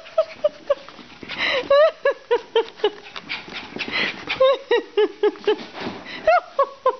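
Small bichon frise dog giving runs of short yips and whines, several a second, with breathy huffs of panting between, while racing around in excited play.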